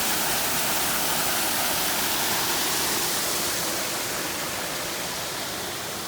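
Steady rushing of a small waterfall spilling over a sawmill dam, running low after a dry spell; it eases off a little about two-thirds of the way through.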